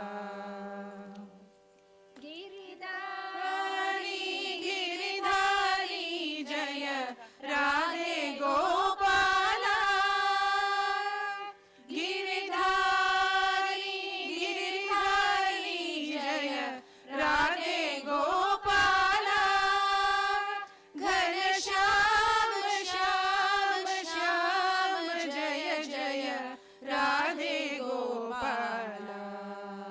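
A group of women singing a Hindu devotional bhajan together, in long melodic phrases of a few seconds each with short breaths between, over a steady drone note.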